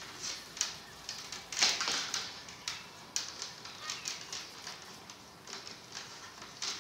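Willow rods of a coracle frame being handled and trimmed by hand: irregular clicks, snaps and scraping rustles of the green willow, with a louder cluster about two seconds in.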